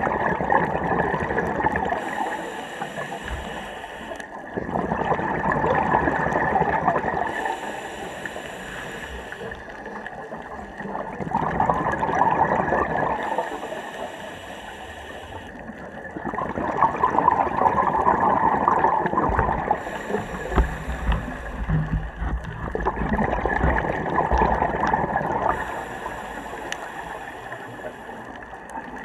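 A scuba diver breathing through a regulator underwater: about five breaths, roughly one every six seconds, each a rush of gurgling exhaled bubbles alternating with the thin hiss of the inhale, over a steady faint high tone.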